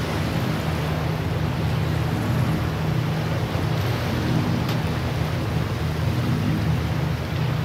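Steady ambient drone: an even wash of noise over a constant low hum, with no distinct events.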